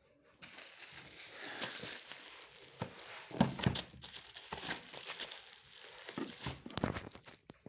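Packaging crinkling and rustling as it is handled and opened, with a few sharp knocks, the loudest about three and a half seconds in.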